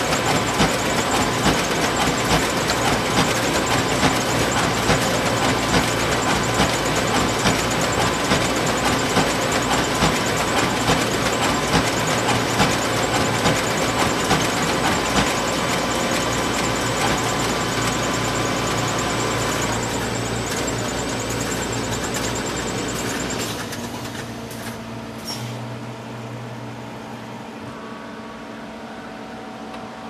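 Photocopier running with a dense, rapid mechanical clatter over a steady hum. About three-quarters of the way through it winds down, leaving a quieter hum with a few steady tones.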